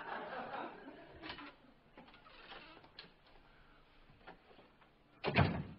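A quiet dark room with a few faint clicks, then one short heavy thump about five seconds in.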